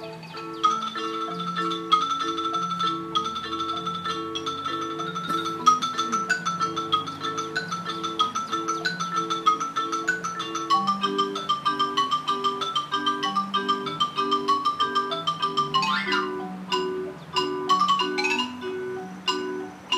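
Mallet percussion ensemble playing: marimba repeating a low steady accompaniment figure under a higher melody. Near the end, quick runs sweep down the keyboard.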